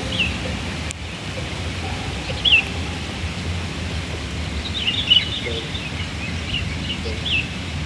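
Small birds chirping in short, high calls a handful of times, clustered near the middle and toward the end, over a steady low rumble of wind on the microphone.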